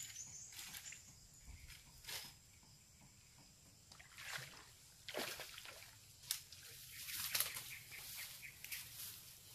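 Faint, irregular splashing and sloshing of water, a hooked snakehead thrashing as it is brought in, with a sharp click about six seconds in.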